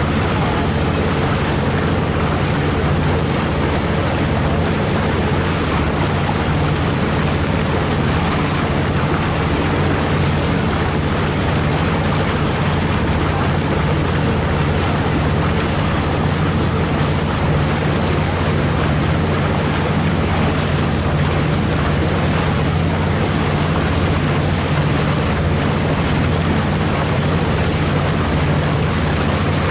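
The engine of the boat carrying the recorder running at a steady cruising speed, a constant low drone, with water rushing past the hull and some wind on the microphone.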